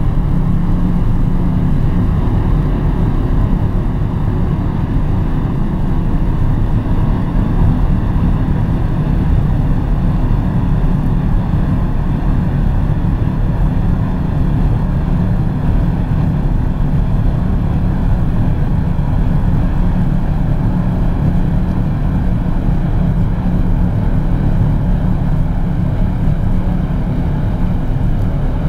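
Steady in-cabin noise of a 2013 Mercedes-Benz C 200 CDI station wagon cruising at about 180 km/h. Wind and tyre noise blend with the hum of its 2.1-litre four-cylinder diesel, heaviest in the low end and holding even throughout.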